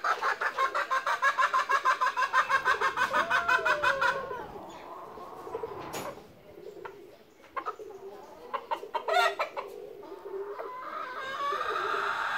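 A squirrel chattering in alarm: a fast run of sharp chirps, about ten a second, for the first four seconds, dropping away and then starting up again near the end.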